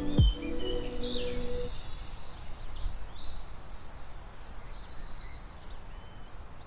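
Small songbirds singing, a run of high chirps and trills that tails off near the end, over a low rumble of wind on the microphone.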